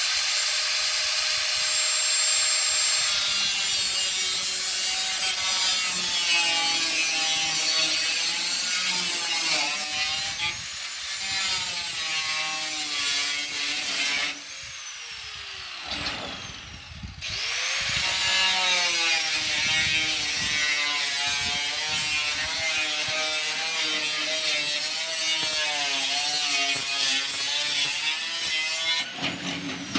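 Power tool with an abrasive cut-off disc, throwing sparks, cutting through sheet-metal roofing tin; its motor whine sags and wavers in pitch as the disc bites. It winds down about halfway through, spins back up a few seconds later, and stops shortly before the end.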